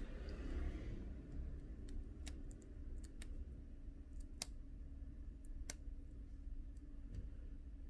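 A handful of light, scattered clicks and taps of small tools and plastic parts on an opened smartphone as the digitizer connector's latch is worked free, over a low steady hum.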